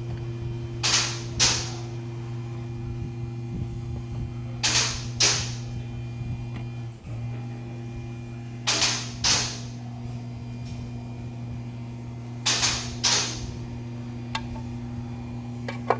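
1999 Honda Civic's four-cylinder engine idling roughly with a steady low hum, broken by a pair of short rushing bursts about every four seconds. The owner puts the rough idle down to a broken camshaft.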